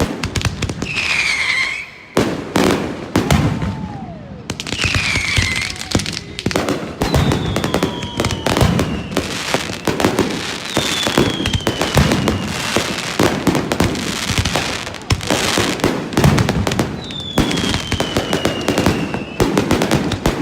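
Fireworks display: a dense, continuous run of bangs and crackling, with about five high whistles that each slide down in pitch over one to three seconds.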